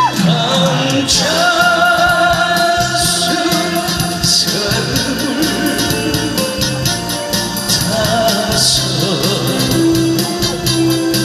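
Amplified Korean trot music over a PA: a backing track with a steady drum beat and melody line. A male singer's voice comes through the microphone at times.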